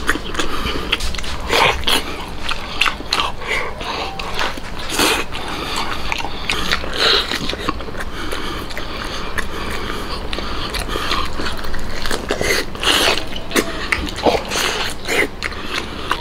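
A person biting into and chewing a braised pork knuckle held in both hands, with irregular mouth clicks and smacks throughout.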